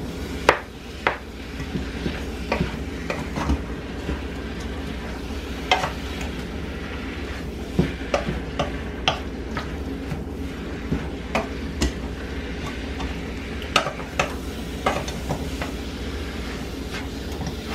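A spoon stirring chunks of chicken and broccoli in a pan, with irregular scrapes and knocks against the pan, over a steady sizzle of the food cooking.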